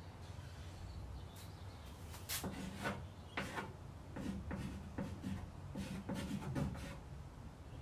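Pencil scratching and rubbing on a primed, sanded wood panel during sketching: short, irregular strokes, roughly two a second, starting about two seconds in over a low steady hum.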